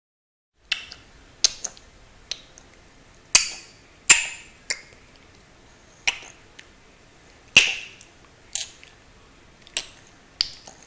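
A small child making funny clicking noises with his mouth: short, sharp clicks at irregular intervals, about one or two a second.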